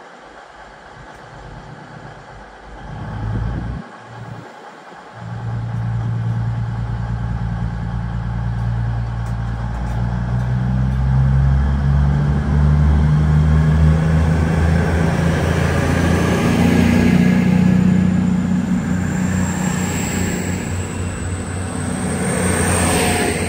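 Diesel train engine starting to work about five seconds in, its deep throbbing note growing louder and climbing in pitch as it powers up, with a thin high whine rising in pitch over the last few seconds.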